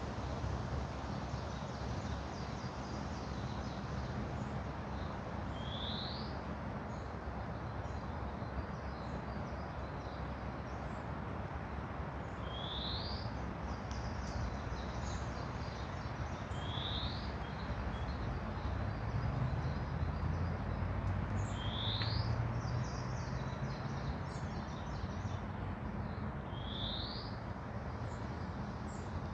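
Forest ambience: a steady hiss of background noise with a songbird repeating a short, quick rising call five times, several seconds apart, and fainter high chirps in between. A low rumble swells for a few seconds past the middle.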